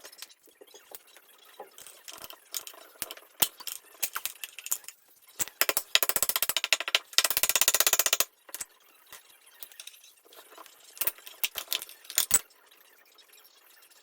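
Metal hand tools clinking and rattling against engine parts during teardown, with about two seconds of rapid, evenly spaced clicking in the middle.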